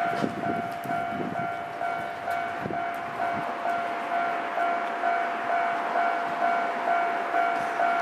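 Japanese railway level-crossing warning bell ringing steadily in a regular repeating ding, about two strikes a second, signalling that a train is approaching.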